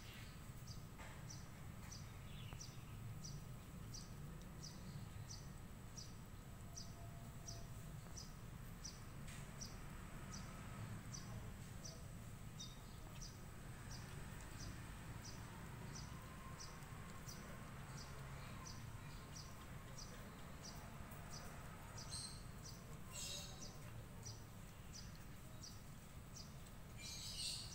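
Faint insect chirping in a steady, even rhythm, about one and a half high chirps a second, over low outdoor background noise, with a few short louder high sounds near the end.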